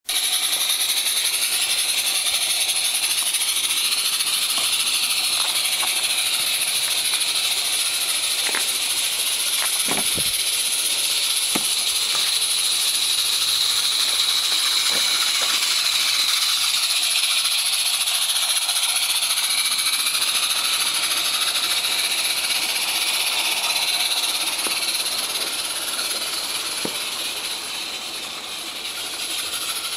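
Two Accucraft Lynton and Barnstaple live-steam tank locomotives running double-headed, giving a steady hiss of steam, with a few sharp clicks a little before the middle. The sound fades slightly near the end as the train passes.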